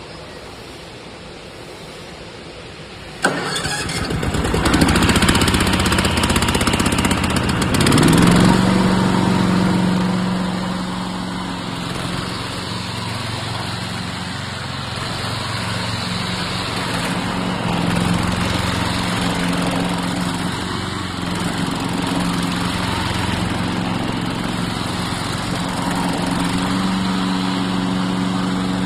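Remote-controlled lawn mower's engine starting about three seconds in with a sudden catch and uneven revving, then settling into a steady run from about eight seconds.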